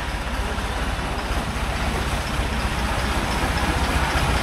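Longtail boat's inboard engine running with a low, fast throb, growing slowly louder as the boat comes closer along the canal.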